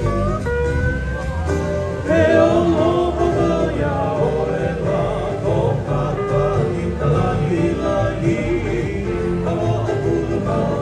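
Music with a group of voices singing over a steady low accompaniment; the voices come in louder about two seconds in.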